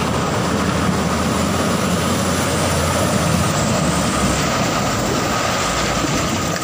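Light dump truck's engine running as it drives through floodwater: a low rumble under a steady rush of water splashing from the wheels.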